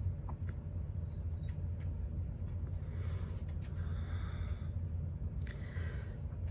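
A person breathing out audibly twice, about three seconds in and again about five and a half seconds in, over a steady low hum.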